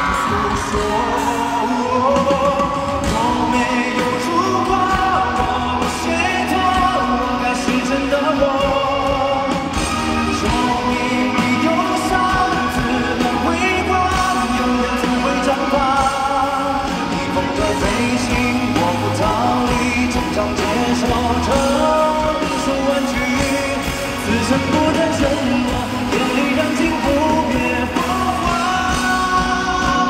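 Live pop ballad: a male lead singer sings into a stage microphone over a full backing band with a steady bass line.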